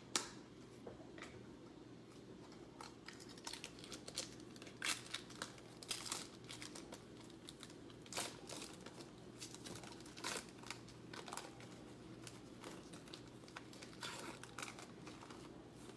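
Plastic wrapper of a basketball trading-card pack crinkling and tearing open, with irregular crackles as it is handled, over a faint steady hum.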